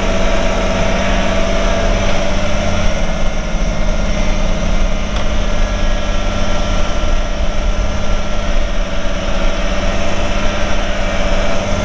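Kubota compact tractor's diesel engine running steadily at a constant speed as the tractor drives and works its front loader.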